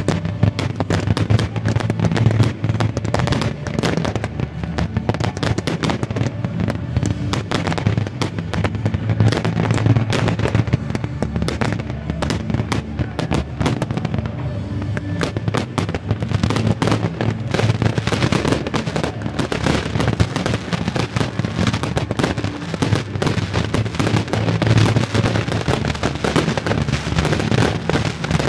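Fireworks display: a dense, unbroken run of bangs and crackling as shells and comets burst in quick succession.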